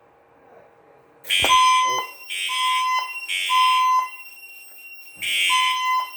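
Fire alarm system going into alarm, its notification appliances sounding the temporal-three evacuation pattern. The pulses start about a second in: three about a second apart, a pause, then the next set beginning near the end. The smoke detector under test has tripped.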